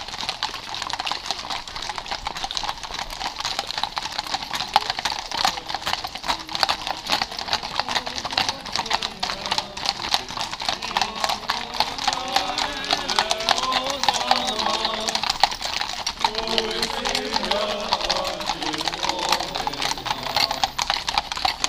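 Hooves of many horses clip-clopping at a walk on an asphalt road, a dense stream of overlapping clicks. From about eight seconds in, voices join over the hoofbeats.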